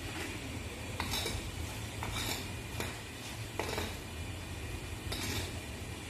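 A metal skimmer scrapes and clinks against the inside of a large kazan as rice is stirred and turned in water, about five sharp scrapes over a few seconds. A steady low hum runs underneath.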